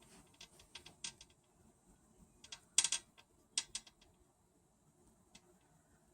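Budgie handling a hanging string toy: a run of irregular sharp clicks and creaks, loudest about three seconds in, then dying away.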